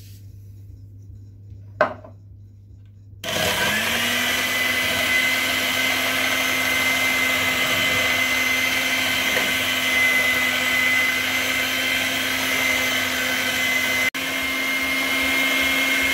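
Bifinett electric hand mixer switched on about three seconds in, its whine rising briefly as it comes up to speed, then running steadily as its beaters mix sugar into beaten eggs. There is a short knock just before it starts, and an instant's break in the sound near the end.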